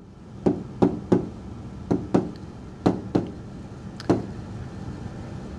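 Pen tapping against the screen of a SMART Board interactive whiteboard during handwriting: about eight short, sharp taps at irregular spacing, one as the pen touches down for each stroke.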